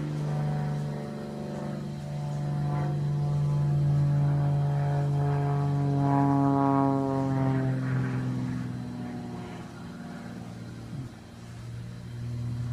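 Propeller airplane engine running steadily during aerobatics, its pitch sliding down over a few seconds around the middle and climbing again near the end.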